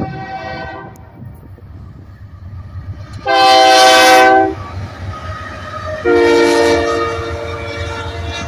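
Diesel locomotive air horn sounding a chord in three blasts. One fades out about a second in, a loud blast of just over a second follows at about three seconds, and another starts around six seconds and trails off. Underneath is the steady low rumble of the Union Pacific GE C44ACCTE-led locomotive consist passing close by.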